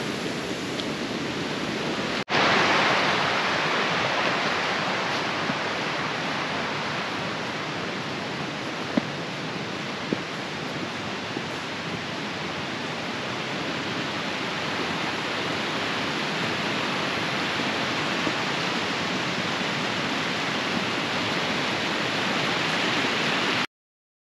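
Steady rushing of water. About two seconds in there is a brief break, after which it is louder, and it cuts off abruptly near the end.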